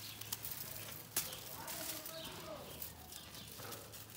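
Plants and a thin plastic bag rustling as dried flower heads are picked by hand, with a couple of sharp clicks in the first second or so.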